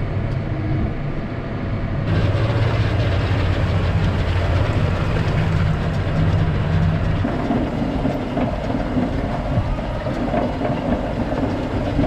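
John Deere tractor engine running steadily under load while driving a feed wagon that discharges feed, heard as a constant low hum. The sound shifts abruptly about two seconds in and again around seven seconds.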